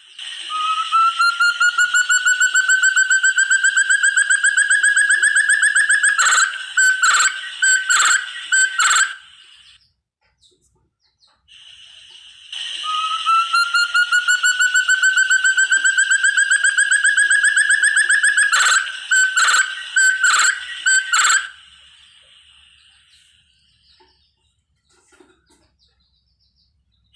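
Forest partridge (burung terung) calling: two bouts, each a long rapid series of whistled notes slowly rising in pitch for about six seconds, ending in about five separate louder notes. The second bout starts about halfway through.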